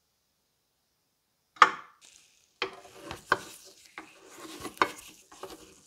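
Flathead screwdriver meeting a rusty screw on a gumball machine's metal lid. It lands with one sharp click about a second and a half in, then gives a run of scraping clicks as it works the screw.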